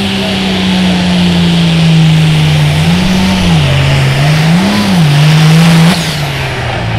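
Turbocharged diesel engine of an International Harvester limited pro stock pulling tractor running at full load as it drags the sled down the track. The engine note sags slowly, rises and falls twice in the middle, then drops and gets quieter about six seconds in.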